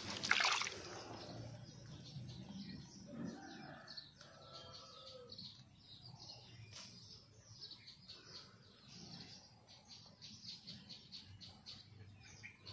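Birds chirping in short, repeated calls, with a brief louder noise just after the start.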